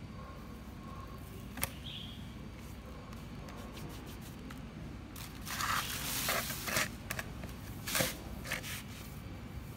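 Hands rustling and crinkling a plastic bag while scooping dry pig-feed bran and squeezing it into bait dough. There is one small click early on, then a busy stretch of scrunching with a few sharp crackles in the second half.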